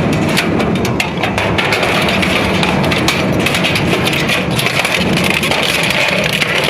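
A heavy crushing or shredding machine grinding material apart, a steady low rumble under a dense, continuous crackle of breaking and snapping.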